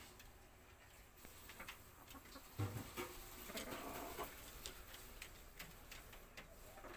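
Chickens in a wire-mesh coop, quiet: scattered small clicks and taps, a single thump about two and a half seconds in, and a short stretch of soft clucking a second later.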